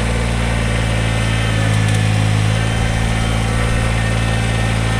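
Kubota BX20 compact tractor's small three-cylinder diesel engine running steadily, briefly louder about two seconds in.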